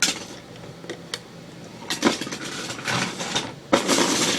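Loose plastic Lego bricks clattering and clicking as hands rummage through a pile of pieces, getting louder and busier near the end.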